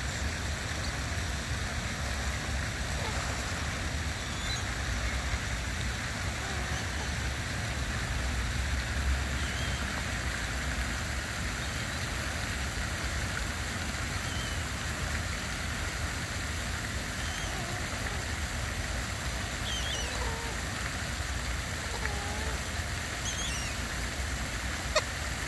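Steady outdoor ambience: a low, wavering rumble and an even hiss, with a few faint, short bird calls scattered through and one sharp click near the end.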